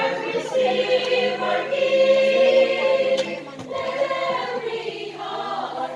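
A choir singing a Christmas carol in long held notes, starting abruptly.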